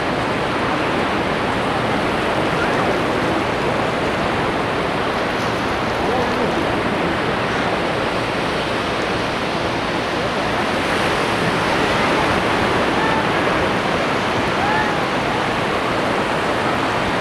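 Sea surf washing steadily onto a beach, an even rushing noise with no clear single wave breaks. Faint voices of people can be heard in the background.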